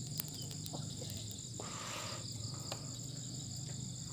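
Steady high-pitched chorus of crickets, over a low steady hum, with a few small clicks and a short rush of noise about a second and a half in.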